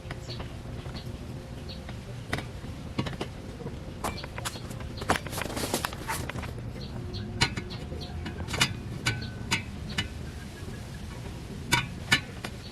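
Scattered metallic clinks and knocks of hand tools and exhaust pipe parts being handled during an exhaust installation, some ringing briefly, with a denser run of clicks about halfway through, over a steady low hum.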